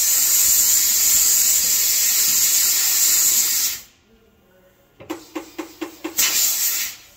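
Compressed air hissing in a long blast on a tire changer, stopping about four seconds in; after a pause comes a quick run of about six clicks, then a second, shorter blast of air near the end.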